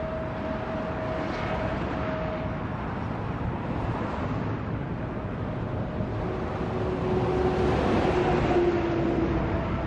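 Highway traffic passing at speed: a steady rush of tyres and engines, growing louder from about seven seconds in as a semi-truck goes by close.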